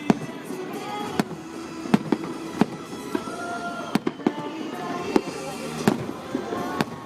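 Aerial fireworks bursting in a rapid volley, a sharp bang every half second to a second, over background music.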